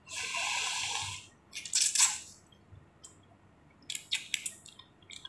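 Mouth sounds of someone eating hot chicken thukpa noodle soup: a hissy sound about a second long at the start and a shorter one around two seconds in. A few light clicks follow about four seconds in.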